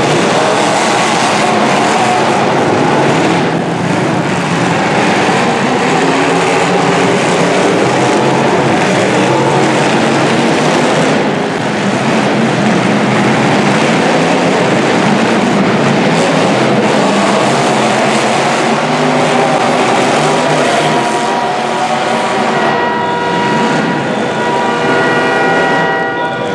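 Demolition derby car engines revving together in a loud, continuous din of engine and crash noise. A steady pitched tone, like a horn, sounds over the last few seconds.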